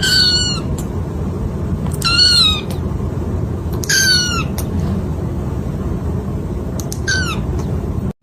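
Kitten meowing four times, high-pitched calls that bend down in pitch, spaced about two seconds apart, over a steady low rumble.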